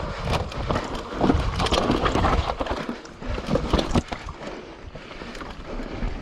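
A full-suspension mountain bike (YT Capra 29) clattering and rattling as it rides fast over rough, rocky trail, with a dense run of irregular knocks and tyre noise, heavier in the first four seconds and lighter after.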